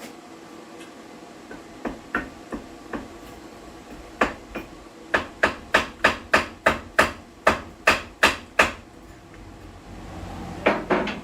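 Hammer blows: a few light taps, then a steady run of about a dozen harder strikes at two to three a second, and a short quick cluster near the end.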